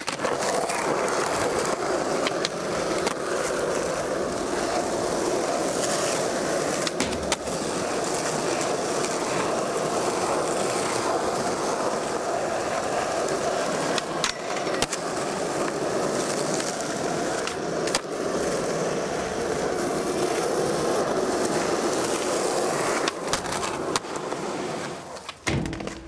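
Skateboard wheels rolling on asphalt: a steady, loud rolling noise broken by a few sharp clacks of the board, one of them about halfway through as a skater boardslides a flat rail.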